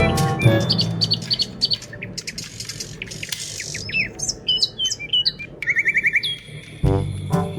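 Birds chirping: many short, high whistled chirps that rise and fall, with a quick run of about five chirps near the end, over background music that fades away after the first second and comes back near the end.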